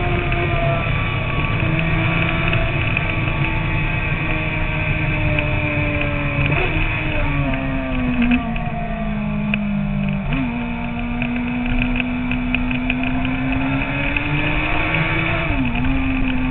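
Sport motorcycle engine running at highway speed under wind rush over the bike-mounted microphone; the engine note steps up sharply a couple of times and eases back between, as the rider works the throttle and gears.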